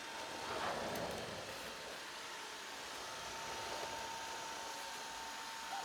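Eufy E25 robot vacuum running: a steady hiss of suction with a thin, steady whine over it.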